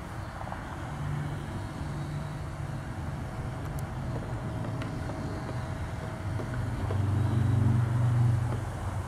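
Low, steady engine rumble of a motor vehicle, growing louder about seven seconds in and easing off just before the end.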